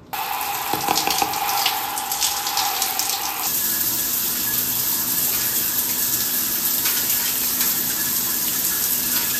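Water running steadily in a shower, a constant hiss. Its tone shifts about three and a half seconds in.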